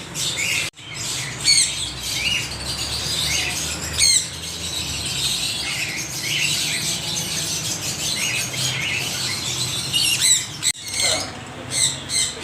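A flock of parrots calling at once: a dense, continuous chatter of short chirps and squawks. The sound breaks off for an instant about a second in and again near the end.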